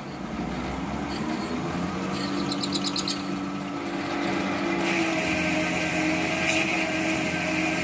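Warco WM250V lathe running with a faceplate and clamped workpiece spinning, its hum rising in pitch over the first couple of seconds as the spindle comes up to speed. From about five seconds in a boring bar starts cutting inside the bore, adding a steady high hiss over the machine's hum.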